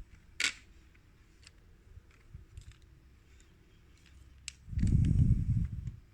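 Light plastic clicks and taps from handling the parts of a CD player's disc mechanism, with one sharper click just under half a second in. Near the end comes a loud low rumble lasting a little over a second, like the parts being handled right at the microphone.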